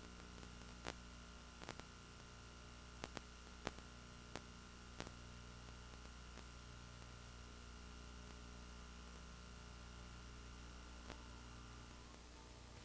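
Near silence: faint steady hum and hiss of a VHS tape's playback, with a few faint clicks in the first five seconds and one more near the end.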